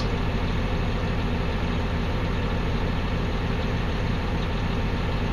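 Caterpillar D6T dozer's diesel engine idling steadily, heard from inside the cab.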